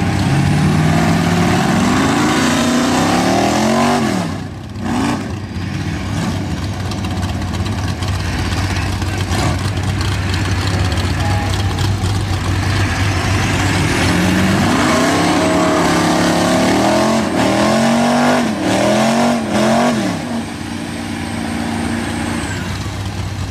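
Big mud-truck engines revving hard in repeated rising pulls, over a steady low engine drone. The revs come early and again from about 15 to 20 seconds in: a Ford diesel mega truck is snatching a mega truck buried over its axles out of the mud on a tow rope.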